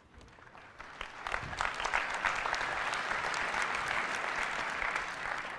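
Large audience applauding, a dense patter of many hands clapping that swells about a second in and holds steady before starting to fade near the end.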